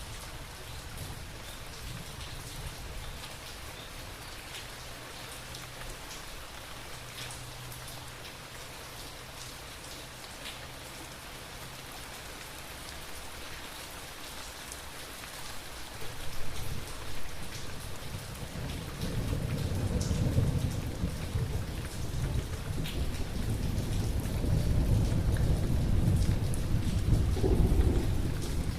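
Steady rain with scattered drops, and thunder rolling in about halfway through: a long low rumble that builds louder toward the end.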